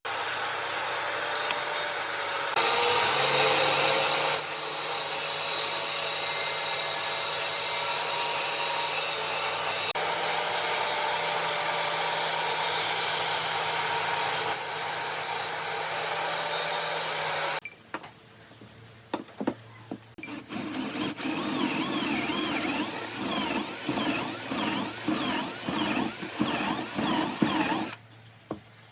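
Electric power tools working wood. One runs steadily with a low motor hum for about seventeen seconds and then stops suddenly, after which a tool starts and stops in short, uneven runs.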